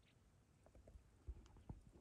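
Near silence: faint outdoor quiet with a low rumble and a few soft, scattered ticks in the second half.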